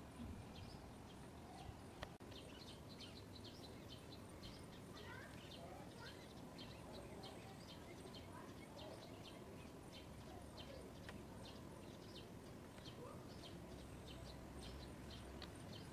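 Faint outdoor ambience: a steady low background rumble with a long run of short, high chirps from small birds, a couple or so each second throughout.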